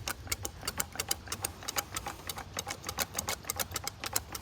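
Rapid irregular clicking, about six or seven clicks a second, from an outboard fuel line's rubber primer bulb being pumped by hand to purge fresh fuel through a line that still holds water-contaminated fuel.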